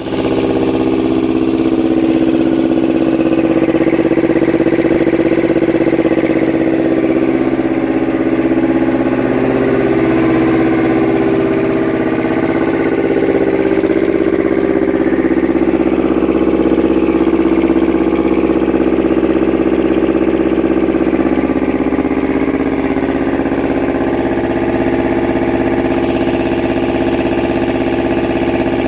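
A Tripac APU's Yanmar 2TNV70 two-cylinder diesel engine running steadily at a constant speed, uncovered and open to the air.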